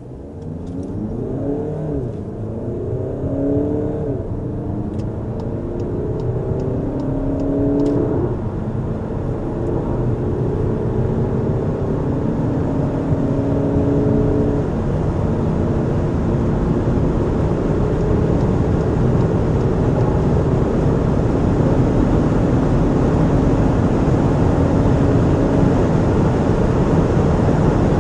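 Seat Ateca FR's 2.0-litre four-cylinder TDI diesel under full-throttle acceleration from a standstill, heard from inside the cabin. The engine note rises in each gear and drops back at the quick DSG upshifts, about two, four and eight seconds in, then climbs more slowly in the higher gears. Wind and road noise grow steadily louder as speed builds.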